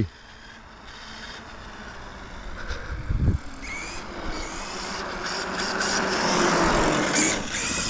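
Electric RC truck driving on reduced power after its battery has hit low-voltage cutoff, its running noise growing louder as it comes closer. There is a short low thump about three seconds in.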